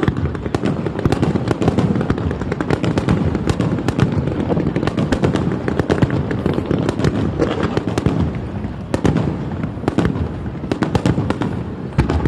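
A fireworks display going off in a dense, continuous run of rapid bangs and crackles over a steady low rumble.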